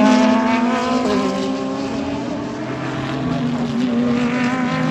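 GT3 race car engine running hard, its pitch sinking slightly over the first couple of seconds, then climbing again.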